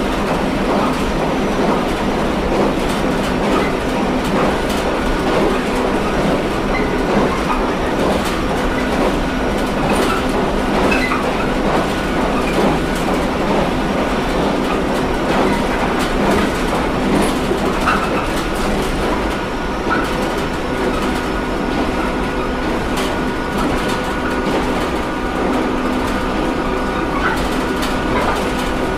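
JR Kyushu 713 series electric multiple unit running along the line, heard from inside the car: a steady wheel-on-rail rumble with clicks over the rail joints and steady humming tones. A higher hum joins after about eighteen seconds.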